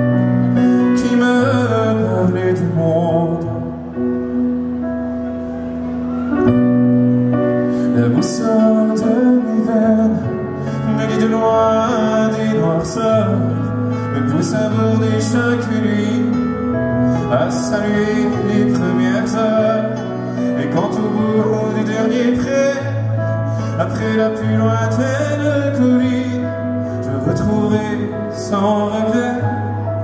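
Live song performed by a band, with a male voice singing over a bass line that holds each note for a couple of seconds.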